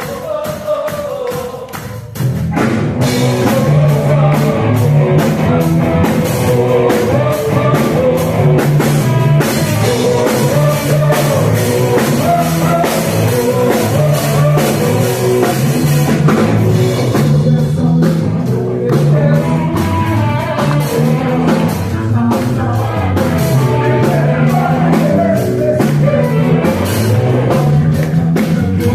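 Rock band playing with drum kit and bass, with singing. A quieter passage gives way about two seconds in to the full band coming in loud.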